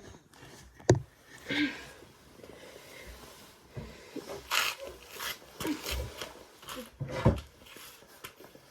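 Scattered knocks, clicks and short rustling noises, as of things being handled, with a sharp knock about a second in and another near the end.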